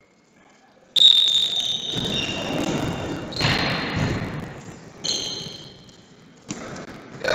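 Referee's whistle blown in several blasts, the first sudden and the longest, about a second in, then two shorter ones, each sounding several high pitches at once, over general noise from the hall.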